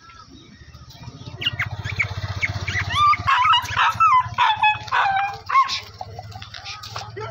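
A small white spitz-type dog barking repeatedly in short, high, quick yaps, loudest from about three seconds in, over a low steady hum.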